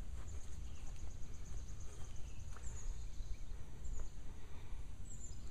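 Small birds chirping high-pitched, with a rapid trill in the first second and a half and scattered single chirps after, over a steady low rumble.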